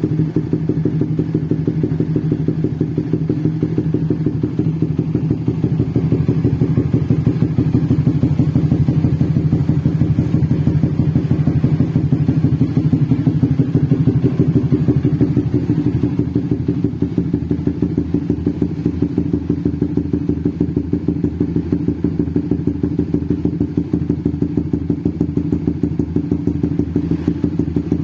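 Suzuki GSX-R150 motorcycle with a bored-up single-cylinder engine idling with a rapid, choppy exhaust beat, likened to a drum band and a helicopter. The revs lift a little about a third of the way in and settle back about halfway through.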